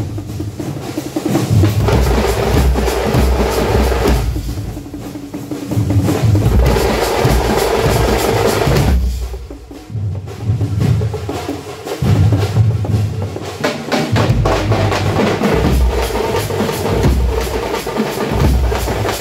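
A troupe of drummers beating large shoulder-slung drums with sticks together in a loud, fast, continuous rhythm, easing briefly a little over nine seconds in before the full beating picks up again.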